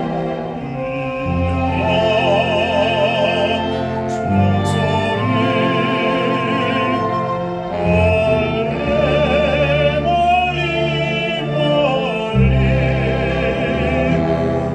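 Baritone singing with wide vibrato over an orchestral accompaniment of sustained strings and low bass notes.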